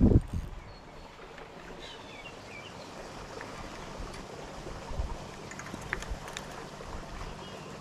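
Steady rush of water running over a small creek spillway, with a few short bird chirps in the first few seconds. A brief low buffet of wind or handling noise sits right at the start, and a few faint clicks come later.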